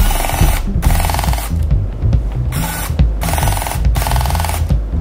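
Electric screwdriver running in four short bursts, the longest about a second and a half, over background music with a steady low beat.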